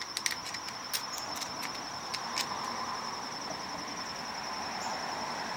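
Insects trilling steadily and high. In the first two and a half seconds there is a run of about ten small, sharp clicks from the carburetor screws and parts being handled.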